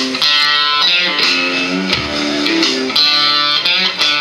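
Live band playing a country song's instrumental intro: electric and acoustic guitars over bass and drums, with no singing yet.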